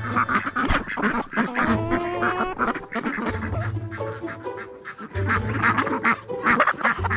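A flock of domestic ducks quacking again and again at feeding time, over background music with a pulsing bass line.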